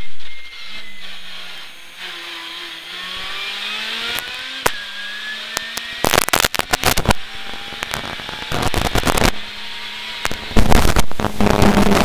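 Citroën C2 R2 rally car heard from inside the cockpit at speed, its engine note rising as it pulls through a gear. Three bursts of loud rattling and banging follow, about six, eight and a half and ten and a half seconds in; the last is the loudest.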